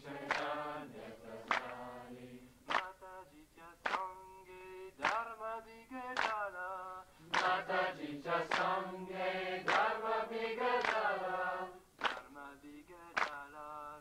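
Voices singing a Marathi devotional song in a chant-like melody, with sharp percussive strokes keeping time about once every second and a bit.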